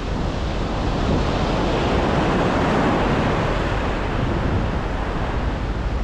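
Atlantic Ocean surf: a wave breaks and washes in, swelling to its loudest about two to three seconds in, then easing off. Wind buffets the microphone underneath with a low rumble.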